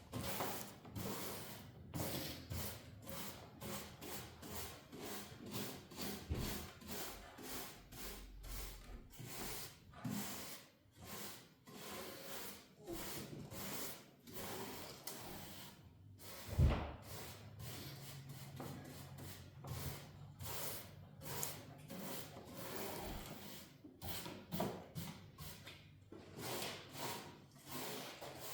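Quick, even hand strokes rubbing and scraping across wood, about two to three a second, as the radial arm saw's old wooden table is cleaned up. One louder knock comes about two-thirds of the way through.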